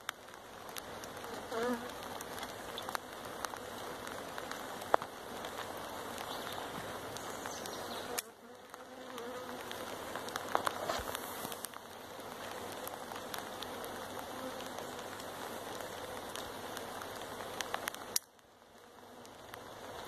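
A honeybee swarm buzzing steadily as its cluster is handled on a cut conifer branch and lowered into a hive box. The buzz drops away abruptly about eight seconds in and again near the end, then builds back up, with scattered sharp clicks throughout.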